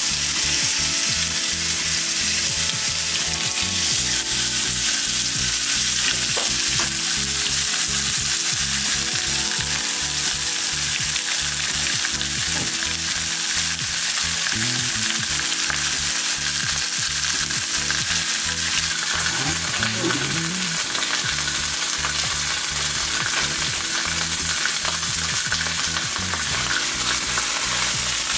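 Steelhead fillets frying in very hot oil in a grill pan. The sizzle starts suddenly as the fish goes in and then holds loud and steady.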